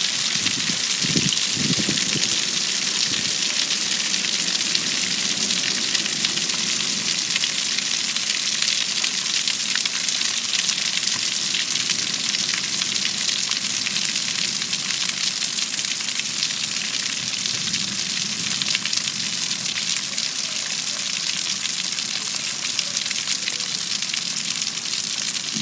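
Heavy rain falling steadily in a thunderstorm, an even hiss with no letup.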